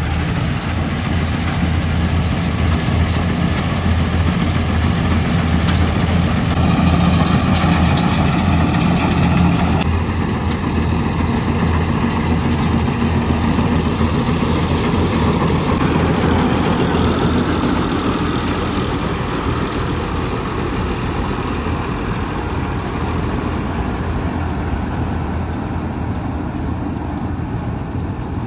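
Tractor-mounted Jasmesh 912 combine harvester on an Eicher 557 tractor, its diesel engine running steadily under load while the machine cuts and threshes standing paddy, with a deep, continuous hum. The sound eases a little in the second half.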